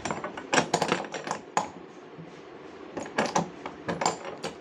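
Irregular metallic clicks and clinks of a hand tool working on a wheel nut as the wheel is tightened, in small clusters a few times.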